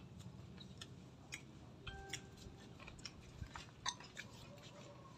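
Faint eating sounds: scattered small crunches and mouth clicks as raw vegetables are chewed, the sharpest a little before four seconds in.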